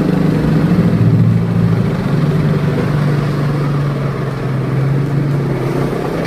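Isuzu Traga pickup's diesel engine running through an aftermarket three-branch growling ('ngorok') exhaust: a steady, deep drone that swells slightly about a second in.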